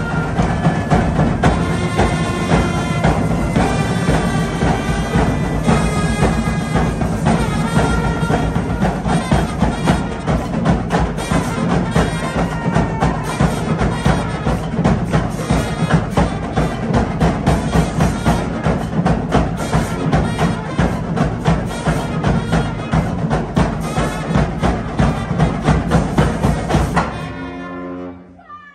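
High school marching band playing in the stands: brass with sousaphones carrying the low end over a steady drum beat. The band stops about a second before the end and the sound rings out briefly.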